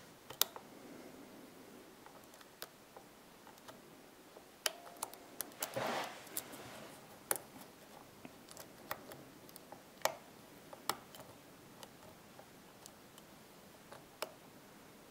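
Faint, irregular metallic clicks and light scraping of a hook pick working the pins of a six-pin MU pin-tumbler cylinder with serrated driver pins, held under a tension wrench. There is a brief rubbing sound about six seconds in.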